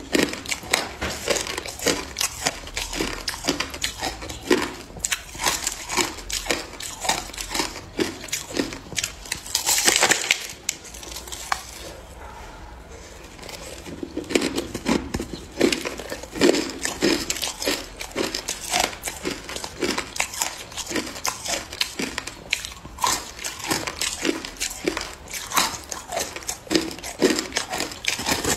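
Hard, frosty ice being bitten and chewed close to the microphone: dense, irregular crunching and crackling, with a short quieter lull a little before halfway.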